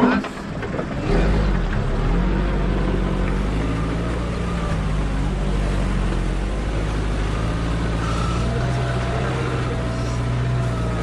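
Off-road vehicle's engine working under load: a thump at the very start, then the engine note rises about a second in and runs steadily and strongly.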